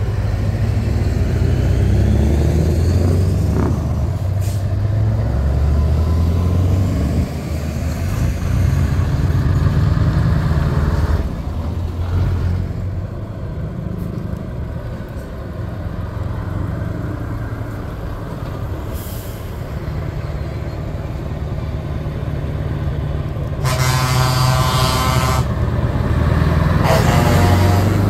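Heavy diesel trucks run steadily as they pull away and pass by. About three-quarters through, an air horn sounds for under two seconds. The sound swells near the end as a truck passes close.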